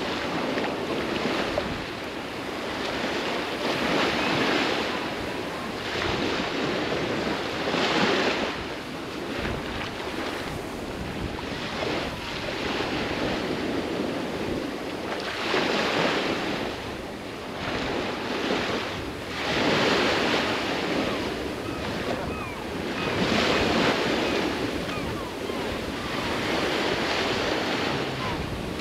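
Sea surf washing onto a sandy beach, swelling and easing every few seconds, with wind.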